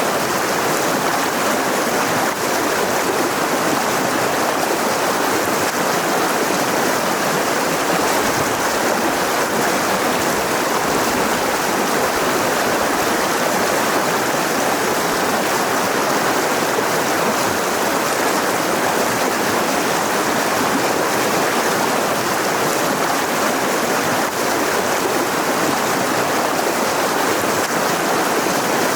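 Mountain river rushing steadily over rocks, a constant full hiss of running water with no change through the stretch.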